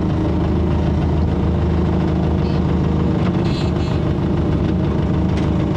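2005 ASV RC-100 tracked skid steer's 100-horsepower turbocharged Perkins diesel engine running at a steady speed, a continuous loud drone.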